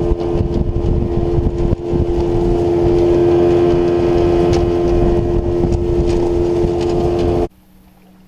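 Tohatsu outboard motor running at a steady speed under way, a loud even drone over a low rumble. It cuts off suddenly near the end.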